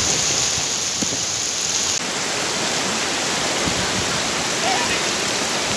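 Rain-swollen stream rushing over rocks and across a path: a steady, even wash of flowing water.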